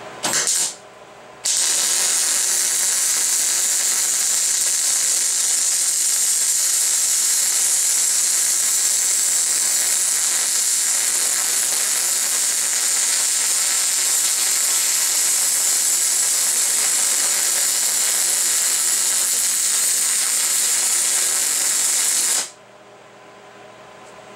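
MIG welding arc on a steel brake caliper bracket: a short burst of arc about half a second in, then a continuous weld bead, a steady hiss for about 21 seconds that cuts off sharply near the end.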